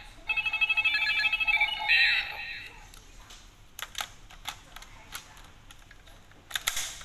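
Toy Ridewatch from Kamen Rider Zi-O playing an electronic jingle, a pulsing beeping tone for about two seconds. Then a series of sharp plastic clicks, with a louder snap near the end, as it is fitted into the Ziku-Driver belt toy.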